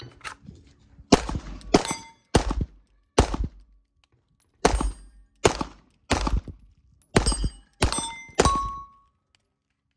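Ten handgun shots fired at a brisk pace, roughly one every two-thirds of a second, with a pause of about a second and a half after the fourth. Many shots are followed by the brief metallic ring of a struck steel plate target, the last one ringing longest.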